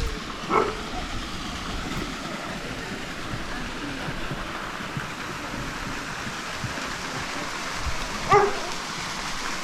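Steady rush of a waterfall, with a dog barking once about half a second in and again, louder, near the end.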